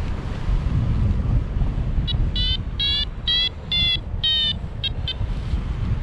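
Airflow rumbling on the microphone in flight. About two seconds in, a Syride SYS'Nav paragliding variometer starts a run of short electronic beeps, about two a second, and they stop near the end. Rapid beeping from a vario signals that the glider is climbing in rising air.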